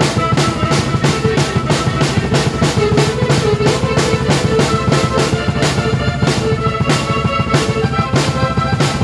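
A drum kit and a keyboard playing together: bass drum, snare and cymbals keep a steady, fast beat of even hits under sustained keyboard notes.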